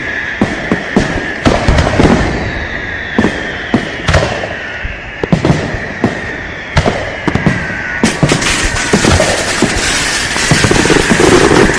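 Fireworks going off: repeated sharp bangs with high whistling tones sliding down in pitch. About eight seconds in, the bursts turn into a denser, continuous crackling barrage.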